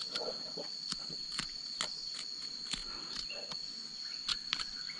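Hoof knife paring the dead sole of an elephant's foot around an abscess, heard as irregular short sharp snicks a few times a second. A steady high insect drone runs underneath.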